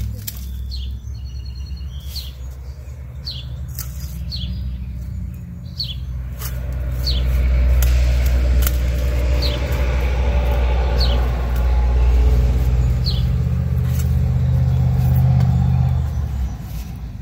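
A steady low engine rumble that swells about six seconds in and fades near the end, with a small bird chirping repeatedly, short falling notes about once a second.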